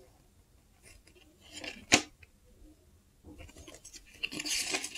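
Paper rustling as a folded instruction leaflet and a small card are handled and turned over, with one sharp click about two seconds in and denser rustling in the second half.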